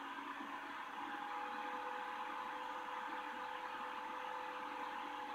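Steady machine hum and whir with a few faint, steady whining tones. A higher whine comes in about a second in.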